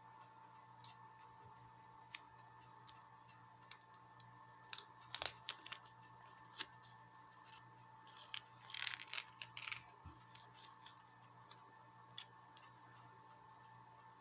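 Scattered light clicks and taps of small plastic parts and screws being handled while a servo mount is fitted to a model aircraft, with a brief cluster of rattling about nine seconds in. A faint steady hum runs underneath.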